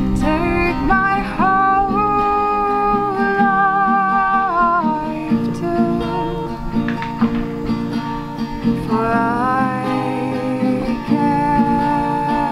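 A woman singing a slow song in long, held notes, with sliding pitch, to her own acoustic guitar accompaniment.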